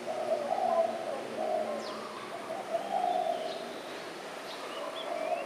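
Spotted dove cooing: a low phrase of several notes, repeated throughout. Faint thin chirps of small birds sound high above it.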